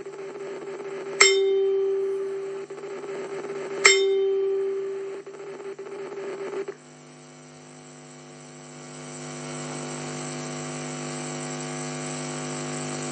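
Two ringing strikes of a bell-like chime about two and a half seconds apart, each fading slowly, heard through an AM radio broadcast. About seven seconds in the ringing cuts off, leaving a steady hum of several tones that grows a little louder.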